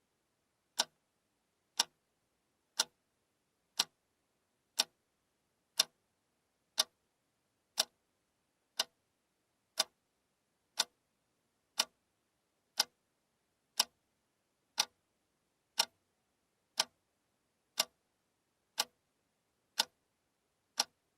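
A clock ticking steadily once a second, each tick a single sharp click with silence between.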